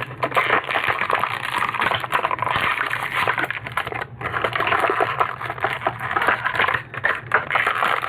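Clear plastic toy packaging crinkling and crackling as it is handled and torn open, with a couple of brief pauses.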